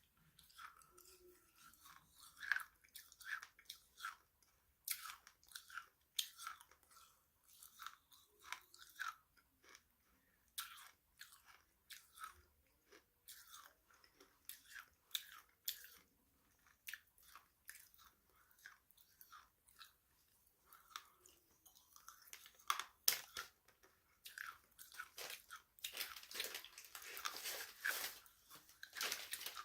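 Close-up chewing and crunching of crunchy snacks, in irregular crisp crackles, with a denser run of crackling near the end.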